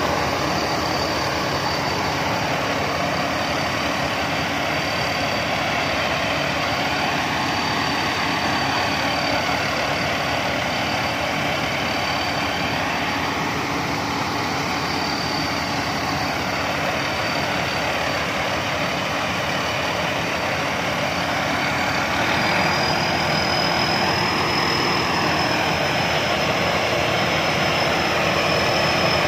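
Combine harvester engine running steadily while it unloads grain, with a steady high whine over the engine noise that steps up a little in pitch about two-thirds of the way through.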